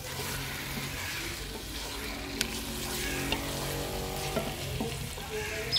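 Wooden spatula stirring fish pieces through sizzling masala in a metal pot, with a sharp click about two and a half seconds in.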